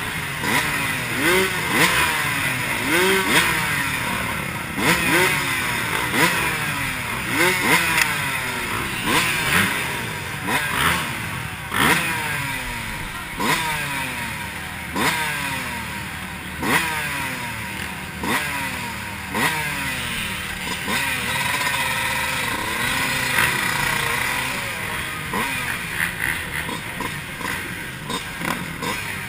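Dirt bike engines revving in short repeated blips, the pitch rising sharply and falling back every second or two. The blipping thins out in the second half.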